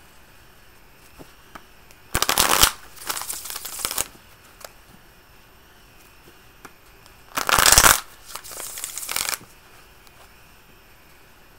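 A tarot deck being shuffled by hand: two bursts of shuffling, each about two seconds long and loudest at its start, the second coming about five seconds after the first.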